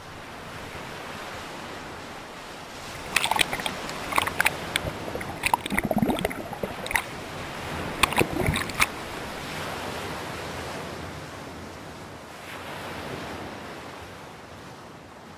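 Steady wash of ocean surf heard from right at the water's surface, with a run of sharp, close splashes from a swimmer's strokes from about three to nine seconds in.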